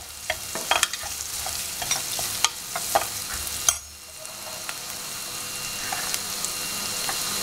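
Chopped onions frying in hot oil in an aluminium pan while a steel spoon stirs and scrapes, clinking against the pan many times. After a last knock just before four seconds in, the stirring stops and a steady sizzle carries on, slowly getting louder.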